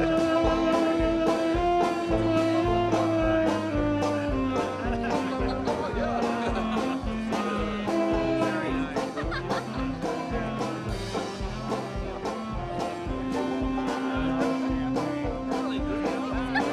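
Background music: an instrumental tune with a steady beat under a melody line.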